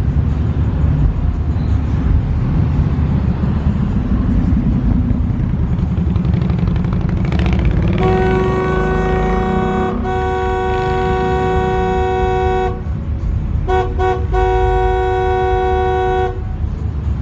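Loud, steady rumble of truck engines at a stop, with one rising rev in the middle. Then a car horn blows for about four seconds with a brief break, gives two short toots, and finishes with a blast of about two seconds.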